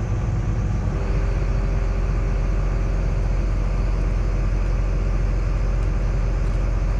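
John Deere excavator's diesel engine running steadily, heard from inside the open cab. About a second in, a steady whine joins and the engine note firms up as the hydraulics move the arm.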